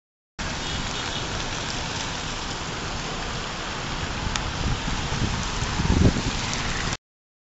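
Rain falling steadily, a dense even hiss that starts and stops abruptly, with a brief low thump about six seconds in.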